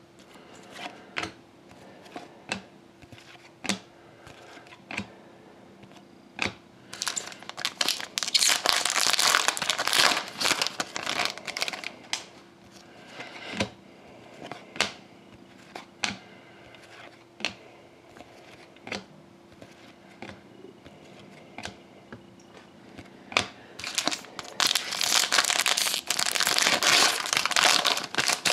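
Foil trading-card pack wrapper crinkling as it is handled and torn open, in two longer bouts, one about a third of the way in and one near the end. In between, light clicks of trading cards being flipped through one at a time, roughly one a second.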